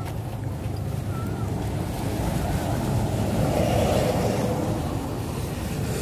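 Steady rumble of a moving vehicle with wind noise on the microphone, growing louder a few seconds in.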